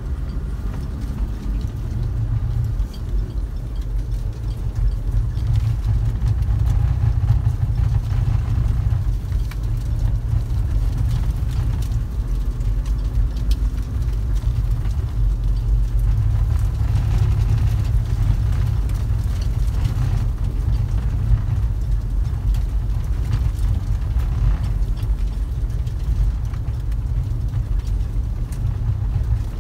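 Vehicle driving, heard from inside the cab: a steady low engine drone with light rattles over it.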